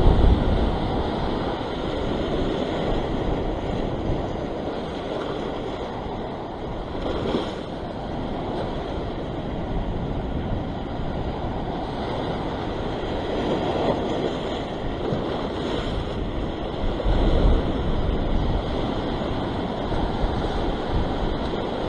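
Surf washing and breaking over a rocky sea shelf, a steady rush of water. Wind buffets the microphone, with heavier gusts of rumble at the start and again about two-thirds of the way through.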